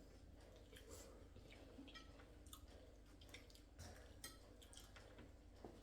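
Near silence with faint scattered clicks and chewing of people eating.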